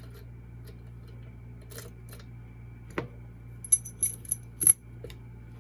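Metal keys being handled: a couple of isolated clicks, then a quick run of bright metallic clinks and jingles in the second half.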